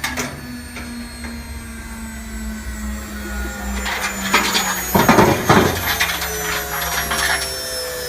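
Washing machine motor running with a steady whine that slowly falls in pitch, with a short stretch of rattling about four to five and a half seconds in.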